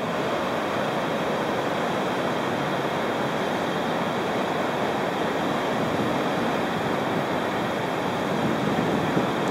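Pacific Ocean surf breaking on a sandy beach: a steady rush of waves, swelling slightly near the end.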